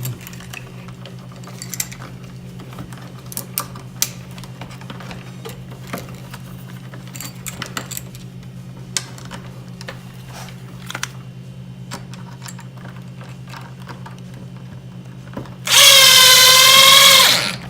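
Scattered small clicks of an outlet and its screws being handled over a steady low hum, then a power drill/driver runs with a wavering whine for about two seconds near the end, driving in an outlet's mounting screw.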